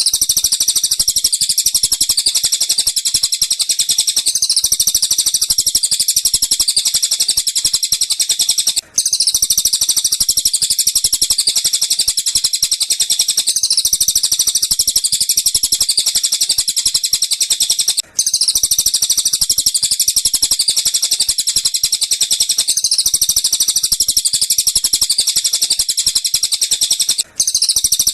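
Bird-song training recording of tengkek buto and cililin calls: a dense, unbroken stream of rapid high chirps that drops out for a moment three times, about every nine seconds, where the loop restarts.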